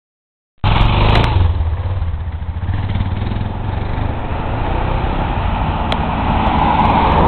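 Street traffic: vehicle engines and tyre noise with a heavy low rumble, cutting in after a brief silence and growing a little louder near the end as traffic approaches.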